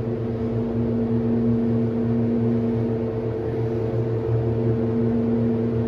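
Federal hydraulic elevator running upward, its hydraulic pump motor a steady low hum with a few held tones, heard from inside the car.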